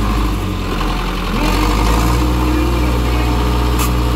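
Zetor 7245 tractor's four-cylinder diesel engine running steadily close by, working against a team pulling on a rope in a tug-of-war, with crowd voices over it.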